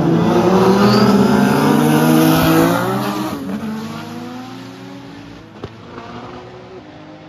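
Drag cars launching at full throttle, engine pitch climbing steadily. About three seconds in the sound starts to fade as the cars pull away down the strip.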